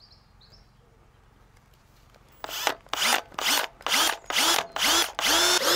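Power drill boring a hole through the car's sheet-metal roof. Starting about two and a half seconds in, it is pulsed in several short bursts, each spinning up in pitch, then runs steadily near the end.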